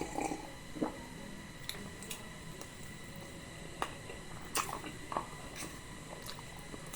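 Close-up mukbang eating sounds: wet, squishy chewing of potato and chickpea curry, with scattered soft clicks and smacks of the mouth.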